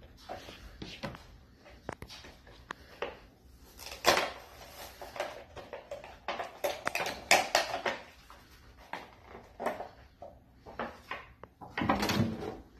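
Plastic blister packaging of a toy monster truck being pried and torn open by hand: irregular crinkling, crackling and snapping of stiff plastic and cardboard.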